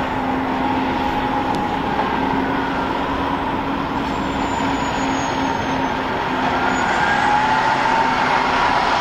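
Garbage truck engine running as the truck drives up, a steady drone with a whine that rises and falls in pitch, growing a little louder near the end as it comes closer.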